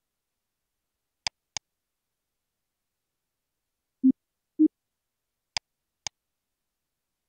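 Short percussive audio samples played back from a DAW in pairs: two sharp clicks, then two louder low thuds, then two more sharp clicks, with dead silence between.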